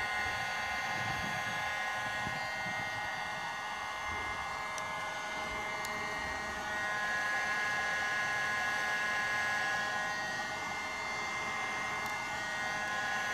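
Electric heat gun running steadily, its fan blowing hot air onto a plexiglass sheet to soften it for bending: a steady rushing blow with a high whine, a little louder for a few seconds in the middle.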